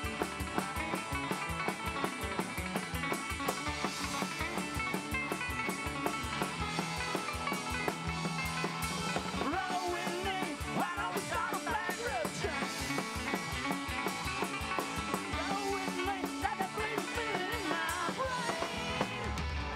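Live band playing an instrumental break: a drum kit keeps a fast, steady beat under upright bass, electric guitar and picked banjo. From about ten seconds in, a lead line with sliding, bending notes comes to the front.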